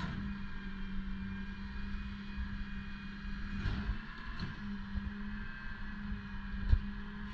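Rear-loader garbage truck running with a steady hum, with a couple of knocks about midway and a sharp bang near the end.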